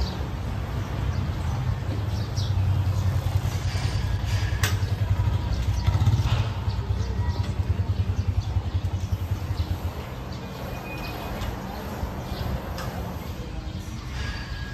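Motorcycle engine running close by with a low, pulsing note, growing louder toward the middle and fading after about ten seconds.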